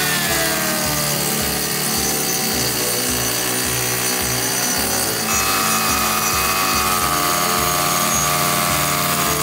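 Hand-held circular saw running along a pine stair tread, cutting a shallow groove for the riser. The motor's whine sags as the blade loads up, then steps up in pitch about five seconds in as the saw keeps cutting.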